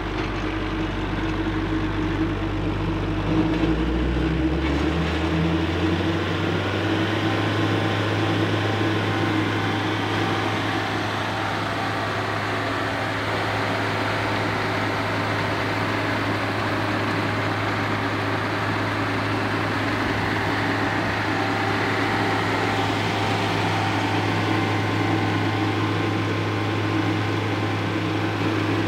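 Kubota 44 hp turbo diesel engine of a Carlton SP4012 stump grinder revving up from a low speed to high throttle a few seconds in, then running steadily at high speed while the cutting wheel spins freely.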